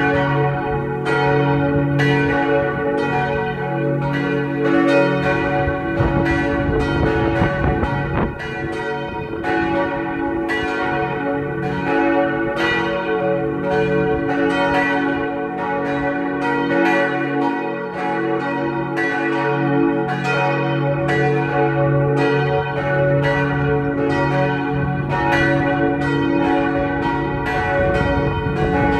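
Three of the four church bells cast by Otto in 1964, tuned to C-sharp, F-sharp and A-sharp, ring together as a swinging peal. Their strokes overlap in a steady stream, about two a second, each one ringing on into the next.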